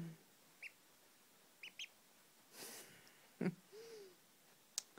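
Duckling giving a few soft, short high peeps, three in the first two seconds, followed by a brief rustle and a couple of soft low murmurs.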